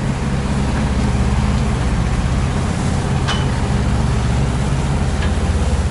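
A steady low engine drone, with a couple of faint clicks partway through.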